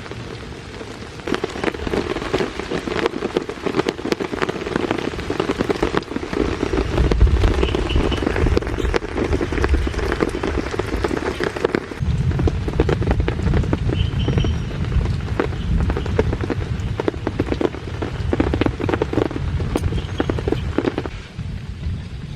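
Heavy rain falling, a dense crackle of drops that picks up about a second in. A low rumble, likely distant thunder, joins about a third of the way in and again about halfway through.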